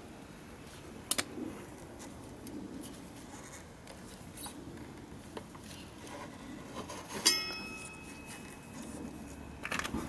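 A motorcycle front brake caliper being worked free by gloved hands: small handling clicks and rustles, a sharp click about a second in, and about seven seconds in a sharp metal-on-metal clink that rings on for a second or so.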